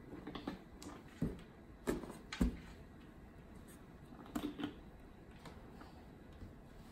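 Irregular soft knocks and slaps on a cardboard box as a baby's hand pats at it, with the loudest thumps about one to two and a half seconds in and a few more around four and a half seconds.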